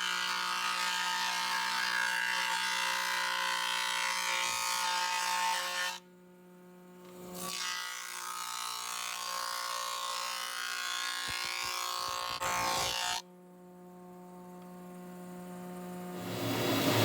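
Thickness planer running with a steady motor whine, flattening glued-up wood. It cuts off abruptly twice, about six and thirteen seconds in, and each time builds back up.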